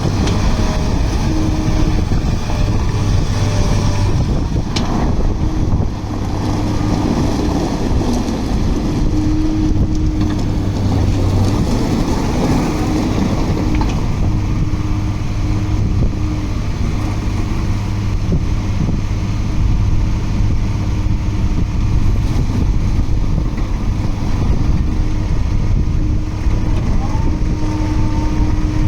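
Diesel engine of a 2005 Cat M316C wheeled excavator running steadily, with a held higher tone above the engine note that breaks off and shifts now and then.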